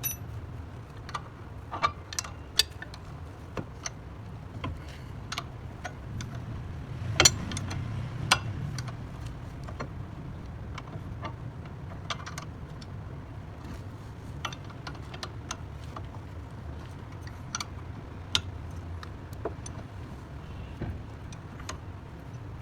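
Scattered sharp metallic clicks and taps of hand tools and car parts being handled during brake and steering work, two louder knocks about seven and eight seconds in, over a steady low hum.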